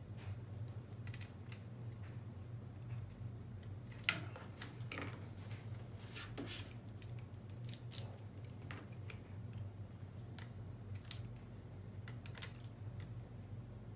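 Scattered small clicks and taps of hand tools and small parts being handled while taking apart a radio-controlled car's front shock mounts, with a few louder knocks about four to five seconds in. A steady low hum runs underneath.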